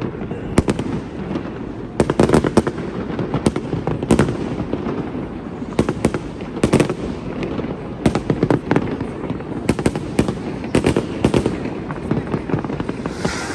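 Fireworks display: a dense, continuous barrage of sharp bangs and crackles, several each second, over a constant rumble.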